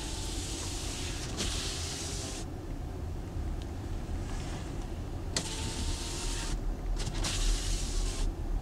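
Car driving slowly, heard from inside the cabin: a steady low engine and road rumble, with stretches of hiss that come and go sharply several times.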